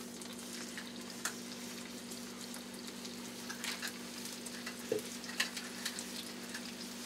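Grouse breasts sizzling in a buttered frying pan, with scattered crackles and a few louder pops as more pieces go in. A steady low hum runs underneath.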